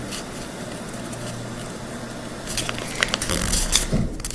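A sheet of paper being handled, folded and creased by hand. It is quiet at first, then a run of short crackles and taps starts about halfway through.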